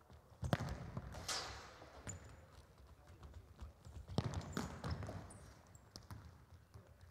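Scattered thuds of futsal balls being kicked and bouncing on a wooden indoor court, with the hall's echo after the louder ones.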